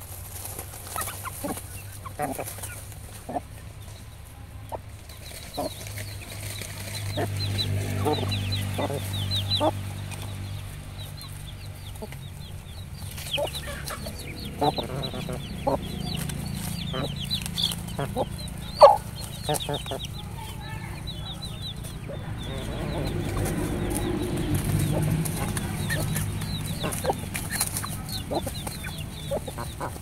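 Black-feathered chickens foraging: hens clucking low while chicks peep in quick high runs, with short clicks of pecking and scratching in dry leaf litter. There is one sharp louder click a little past the middle.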